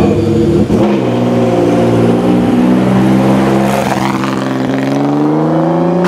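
Renault R.S. 01 race car's twin-turbo V6 running loud at high revs. After a brief break about a second in, its note climbs slowly and steadily as the car accelerates, then cuts off abruptly at the end.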